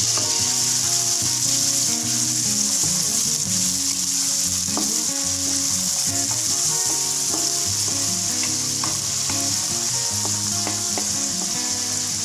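Chopped garlic and small shrimp frying in hot oil in a wok: a steady sizzle, with the odd light tap of a spatula stirring.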